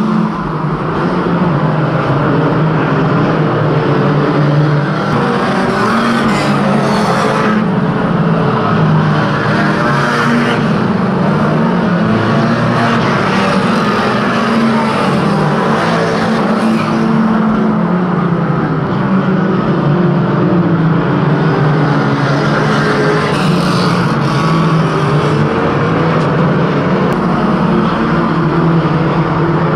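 Engines of a pack of banger racing cars running around the track, several at once, rising and falling in pitch as the drivers rev.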